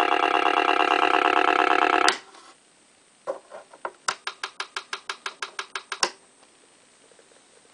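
The radio-controlled ORCA model boat's engine-like running sound, a steady pulsing drone, cuts off abruptly about two seconds in as the boat's power is switched off. A rapid run of small clicks follows, about six a second, ending in one sharper click.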